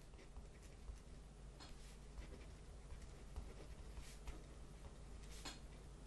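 Near silence: room tone with a low hum and a few faint clicks.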